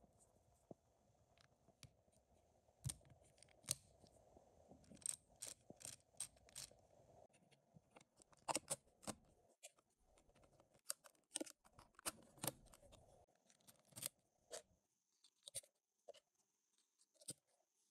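Faint, irregular clicks and clacks of hard plastic LEGO Technic parts as a small gearbox-and-clutch model is handled and its lever and gears are worked by hand.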